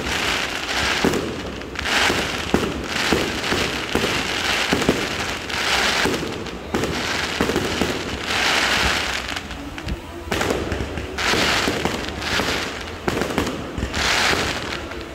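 Fireworks going off in quick succession: a string of sharp bangs, with hissing, crackling bursts of about a second each recurring every few seconds.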